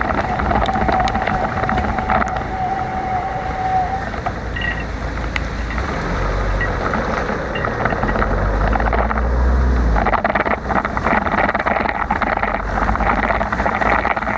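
Wind noise on the microphone of a ride camera, with road and traffic noise, during a bicycle ride in the rain. A thin steady tone holds for the first four seconds, and a deep rumble swells from about six to ten seconds in.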